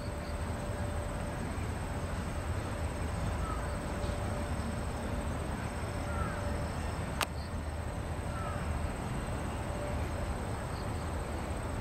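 Outdoor evening ambience: insects trill in a continuous high tone over a steady low rumble, with a few short chirps and a single click about seven seconds in.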